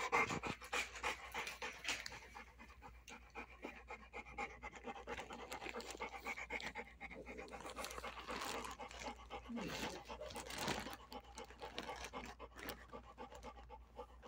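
Large dog panting with its mouth open, quick and steady, close to the microphone.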